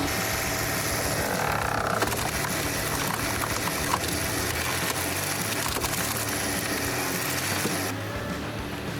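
Background music over steady machine noise, with a few faint knocks; the sound changes and drops slightly near the end.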